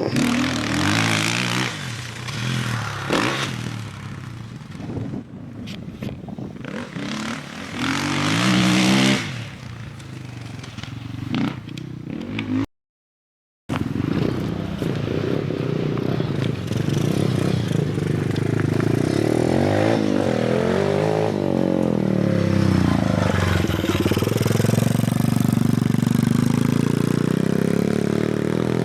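Off-road motorcycle engines revving up and down as bikes ride a dirt track, the pitch rising and falling with the throttle. The sound drops out completely for about a second around the middle, then the engines run on more steadily.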